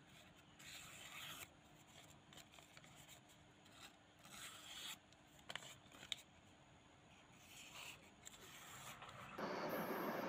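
Short bouts of light scraping and rubbing as a steel knife blank is handled over a mat, with a few sharp clicks. Near the end a steady noise of the forge fire starts abruptly.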